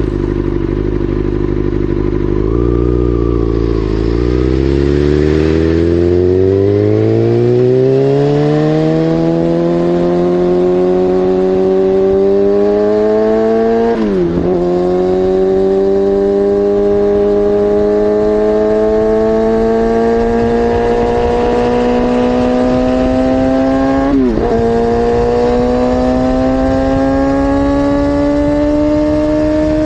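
Kawasaki ZX-6R 636 inline-four engine breathing through an SC-Project CR-T slip-on exhaust. It holds a steady note for a few seconds, then pulls hard, its pitch rising in long climbs. Two quick upshifts, about 14 and 24 seconds in, each briefly dip the note before it climbs again.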